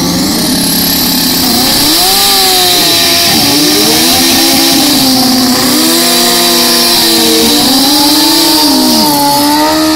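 Drag-racing motorcycle doing a burnout: the engine is held at high revs, its pitch climbing, holding and dipping again and again, with a steady hiss from the spinning rear tyre.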